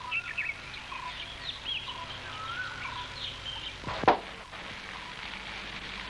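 Rainforest ambience: animal calls in short chirps, whistling glides and a repeated short note, over a steady background hiss, with one sharp knock about four seconds in.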